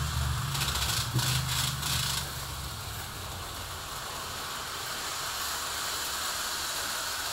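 Model trains and slot cars running on a layout: a low motor hum with rattling clicks that fades out about two seconds in, leaving a steady hiss.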